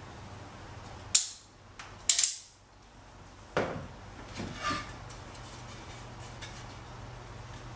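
Sharp clacks of a metal caulking gun being handled and set down, first about a second in and then a quick cluster about two seconds in, followed by softer knocks of a wooden trim piece being picked up. A steady low hum runs underneath.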